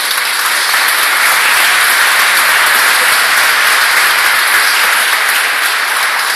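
A crowd of wedding guests applauding, steady clapping from many hands.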